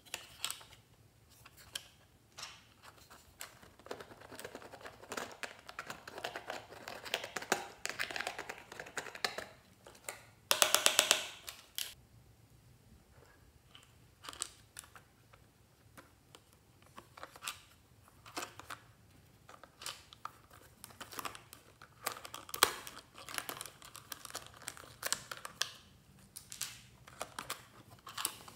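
Close-up handling of a plastic toy makeup case: scattered plastic clicks, taps and rustles as its lid and latch are worked open and shut. A little after ten seconds in comes a loud, brief rattle of fast, even ticks, lasting about a second.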